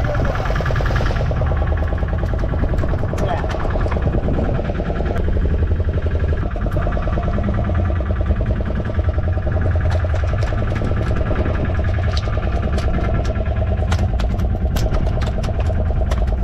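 A small fishing boat's engine running steadily with a low rumble. Over the last few seconds comes a quick run of sharp ticks and taps.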